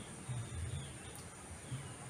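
Faint garden ambience: a steady high insect drone with a few short, faint falling bird chirps, over intermittent low rumbles.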